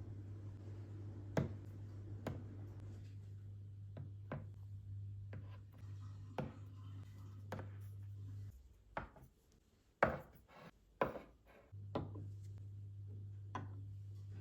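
Scattered knocks and taps of kitchen work on a hard surface, unevenly spaced, over a steady low hum that cuts out for about three seconds past the middle.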